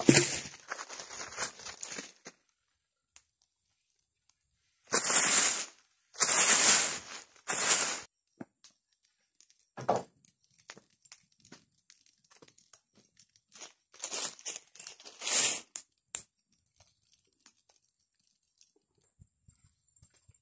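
Dry fallen leaves rustling and crunching in several separate bursts of about a second each, with quiet stretches between.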